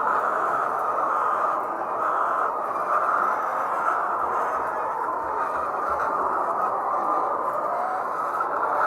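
A large flock of layer hens clucking and calling all at once, a dense, steady din of many birds.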